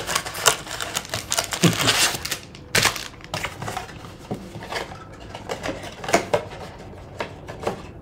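Cardboard trading-card blaster box being opened and handled: a dense run of clicks and rustles as the flap is pulled open, thinning to scattered taps after about three seconds.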